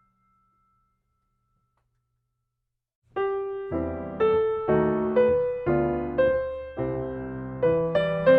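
Complete silence for about three seconds, then background piano music starts abruptly, with notes and chords struck about twice a second, each dying away before the next.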